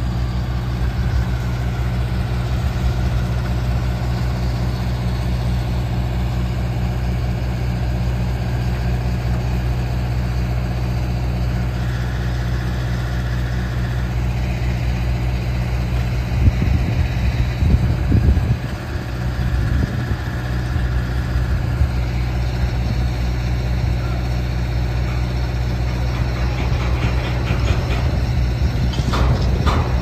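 Heavy machinery engine idling, a steady low hum, with some knocks and clatter from the work site about halfway through and near the end.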